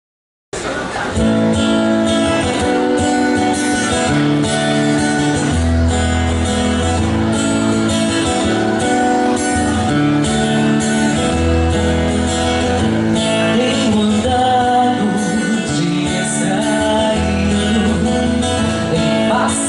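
A live band playing a pop-rock ballad, with acoustic and electric guitars and drums, and a woman singing; the music cuts in abruptly about half a second in.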